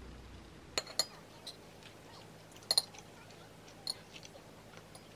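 Stainless steel chopsticks and spoon clinking against a ceramic plate: a handful of light clinks, two about a second in, a close pair near three seconds and one near four.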